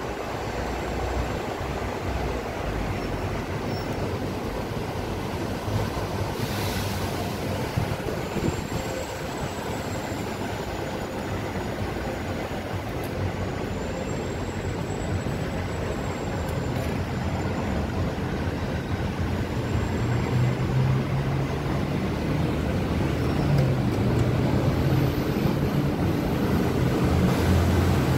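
City street traffic heard from above: a steady road noise, with a low engine hum growing louder over the second half as a heavy vehicle such as a double-decker bus passes below.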